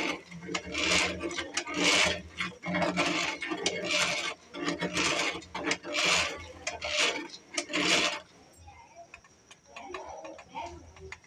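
Twin-loop beaters whisking a milky liquid in a clay bowl, a swishing, splashing churn that surges about once a second. It stops about eight seconds in, leaving a few faint clicks.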